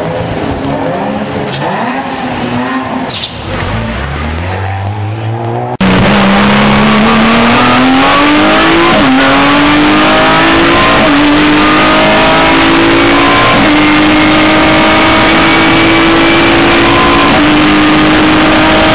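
Renault Megane race car's engine revving and pulling away, then, heard from inside the cabin, running hard under acceleration with its pitch climbing and dropping briefly at three quick upshifts.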